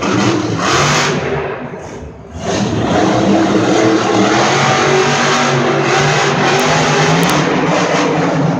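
Son-Uva Digger monster truck's supercharged V8 engine running hard at high revs, dropping off briefly about two seconds in and then coming straight back up.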